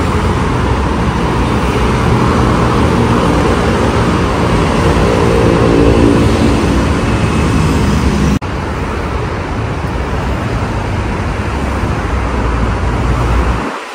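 Steady city road traffic from a multi-lane avenue below, with cars and motorbikes passing. One vehicle's engine stands out for a couple of seconds near the middle. The sound cuts out for an instant about eight seconds in.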